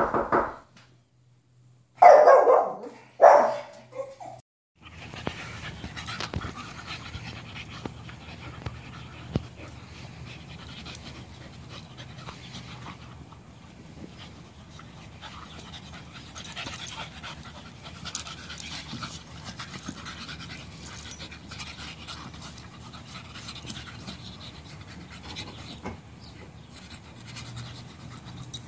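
A small terrier barks about four times, loud and sharp, in the first four seconds. Then two dogs play-wrestling pant steadily.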